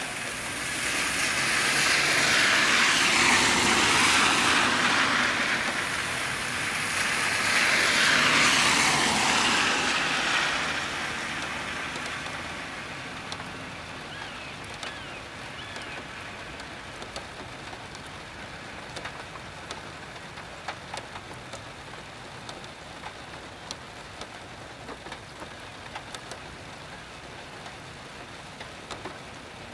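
Steady rain falling, with scattered drops ticking. Two long swells of louder hiss rise and fade over the first ten seconds.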